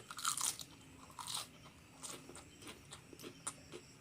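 Crunchy food being bitten and chewed: two loud crunches in the first second and a half, then a run of smaller chewing crackles.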